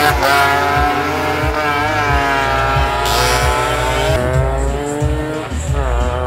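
Racing motorcycle engines revving hard as bikes pass close, the pitch sweeping up and down with throttle and gear changes.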